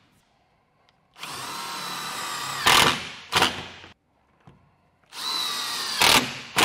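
Cordless drill-driver driving screws in two runs of one to one and a half seconds each. Each run is a steady whine that ends in a sharp clack as the screw stops.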